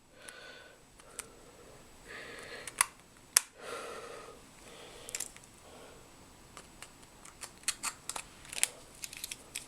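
Small plastic and metal clicks with soft rubbing as a VGA cable plug is handled and fitted onto a mini DisplayPort to VGA adapter. Two sharper clicks come about three seconds in, and a run of lighter clicks follows.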